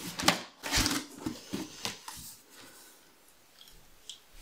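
A knife blade slicing along the packing tape on a cardboard box's seam: a quick run of scraping, crackling cuts through the tape and cardboard in the first two seconds, then quiet handling of the box flaps.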